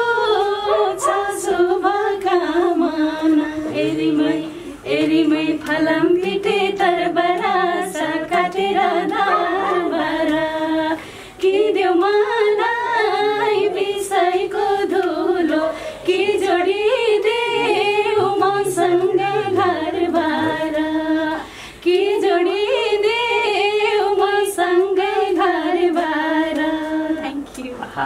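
Singing voices with a woman's voice carrying the tune, in sung phrases broken by short pauses every five or six seconds.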